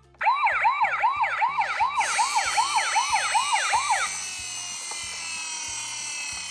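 Toy ambulance's electronic siren in a fast yelp pattern, rising sweeps about three a second, stopping about four seconds in. From about two seconds in, a hissing layer with many falling tones joins and carries on after the siren stops, over a low background music beat.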